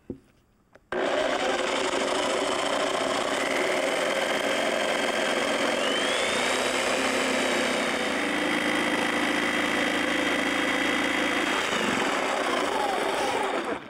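Variable-speed jigsaw with a thin scrolling blade cutting a curve through a wooden board. It starts about a second in and speeds up with a rising whine about halfway through, then winds down and stops near the end.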